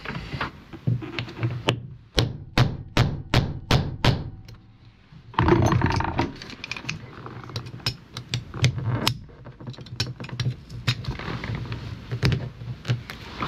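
Hand-tool work on a storage-box panel and its bolts: a run of sharp knocks, about two or three a second, then a brief rasping burst about five and a half seconds in, followed by scattered clicks and taps.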